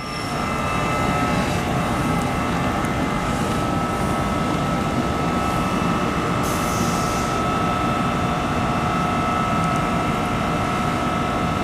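Two NJ Transit ALP-46 electric locomotives standing at the platform, their on-board equipment running with a steady rumble and a constant high whine. A short hiss comes about six and a half seconds in.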